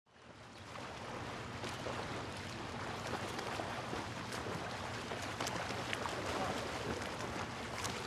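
Steady wind-and-water ambience with scattered small ticks, fading in over the first second.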